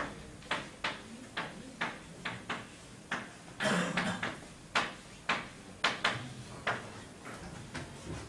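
Chalk tapping and scraping on a blackboard while writing by hand: a run of short sharp taps, about two a second, with one longer scrape about three and a half seconds in. The taps stop near the end.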